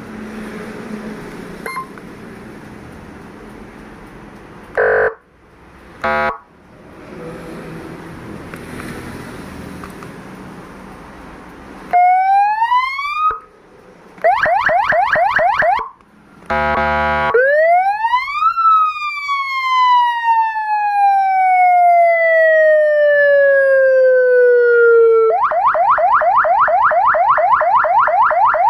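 A 100-watt electronic siren (X5 amplifier and horn speaker) run through its tones. It starts with two short buzzy blasts about five and six seconds in. About twelve seconds in, a rising wail begins and is cut off, followed by a fast yelp warble and another short horn blast. Then comes a long wail rising and slowly falling, and a fast yelp warble near the end.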